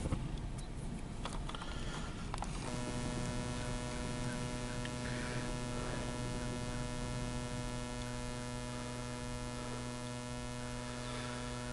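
A steady electrical hum with many overtones comes in abruptly about three seconds in and holds unchanged. Before it there is only a faint rumbling background with a few clicks.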